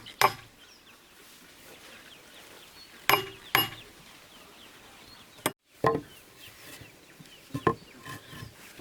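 Stone striking stone in a few separate knocks, pounding corn, with chickens clucking and peeping faintly in the background.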